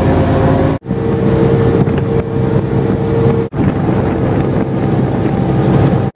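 Motorboat engine running underway, a steady hum with wind buffeting the microphone. The sound drops out briefly twice, about a second in and about three and a half seconds in.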